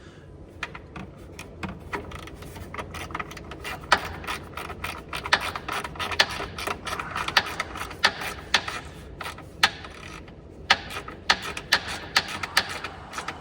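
Gold Icon hand ratchet clicking as fasteners are turned, in irregular runs of sharp clicks with a brief pause about ten seconds in.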